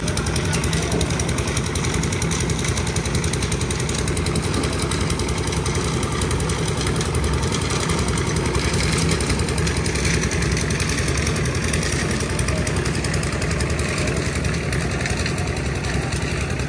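An engine running steadily at idle, with a fast, even, knocking rhythm.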